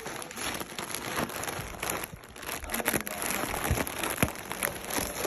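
Plastic shopping bag and cardboard box crinkling and rustling as a cat burrows and plays inside them, a steady rustle full of small crackles.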